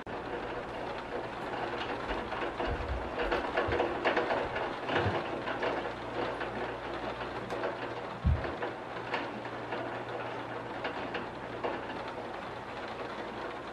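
Steady rain with scattered drips and taps, over a low steady hum. A single low thump comes about eight seconds in.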